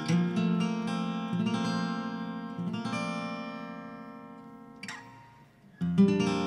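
Acoustic guitar strumming chords; the last chord rings on and fades almost to nothing, then a fresh strum comes in just before the end.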